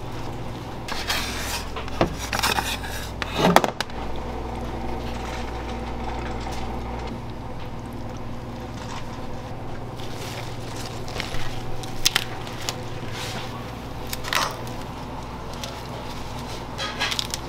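Kitchen food-prep sounds over a steady low hum of kitchen equipment: scattered clinks, scrapes and knocks of a metal spatula and burger buns on a wire rack over a steel tray. The loudest knock comes about three and a half seconds in.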